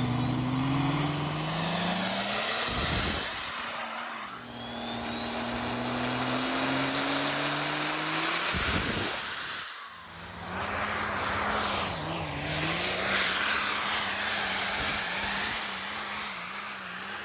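Turbo-diesel pickup engines at full throttle in a string of short clips. In the first clips the engine note climbs in pitch, with a faint rising whistle above it. From about ten seconds in, a truck under heavy load holds a wavering, labouring note.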